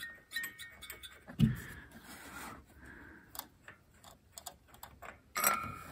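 Light clicks and taps of hands handling engine parts and spark plugs, with a dull thump about one and a half seconds in and a louder clatter near the end.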